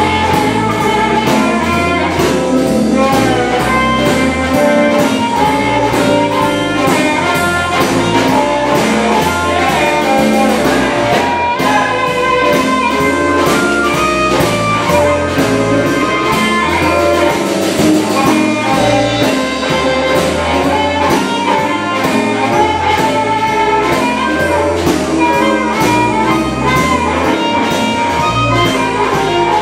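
Live electric blues band: an amplified harmonica played through a hand-held microphone, over electric guitars and a drum kit keeping a steady beat.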